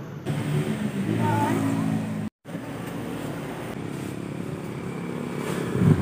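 Outdoor background noise with a motor vehicle engine running steadily, strongest in the first two seconds; the sound drops out for a moment at an edit about two seconds in.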